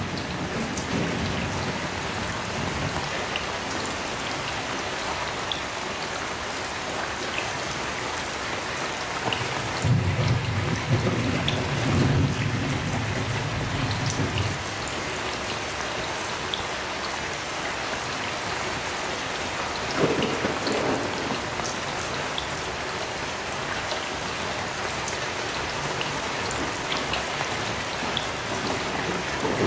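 Heavy rain falling steadily, with a low thunder rumble rolling for a few seconds about ten seconds in and a sharper clap of thunder about twenty seconds in.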